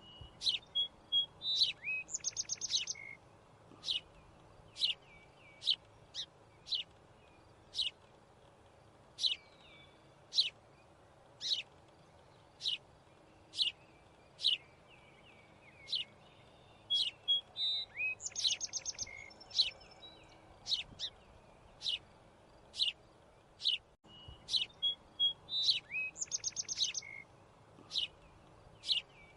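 Bird chirping: short, high, sharply falling chirps about once a second, with a rapid trill now and then.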